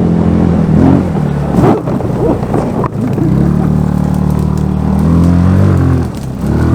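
GY6 150cc single-cylinder four-stroke scooter engine in a Power Wheels jeep running under throttle; its note wavers and breaks up about two seconds in, then holds steady for a few seconds before easing off near the end.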